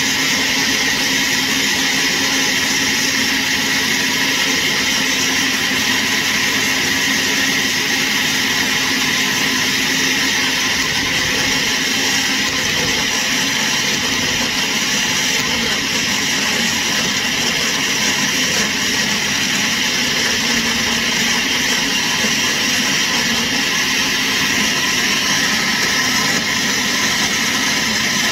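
Countertop glass-jug blender running steadily and loudly, puréeing fresh mint, coriander, tomatoes and chillies into a smooth green chutney.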